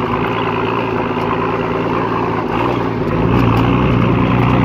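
Mercedes-Benz Unimog diesel engine running steadily as the truck drives, heard from on top of the vehicle. It grows louder about three seconds in.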